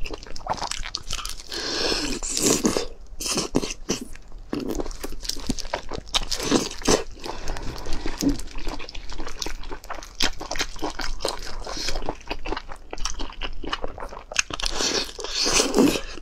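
Close-miked eating: wet chewing and biting of a saucy braised food, with many small mouth clicks and a few louder noisy stretches spread through.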